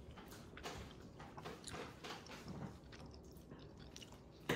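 Faint sounds of eating: a fork working on a plate and chewing, with one sharp click near the end.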